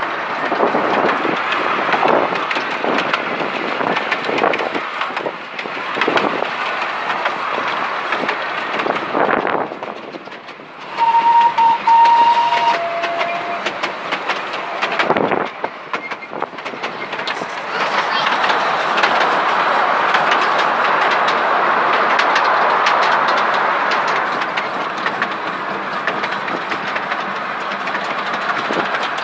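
Miniature railway train running with passengers aboard, its wheels clattering over the rail joints. About eleven seconds in, a whistle sounds two notes, first high, then lower. In the second half a steadier rushing noise takes over.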